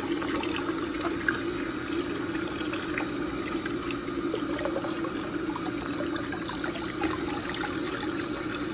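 Faucet running in a steady stream into a sink already full of water, the stream pouring over a capuchin monkey's head and hands.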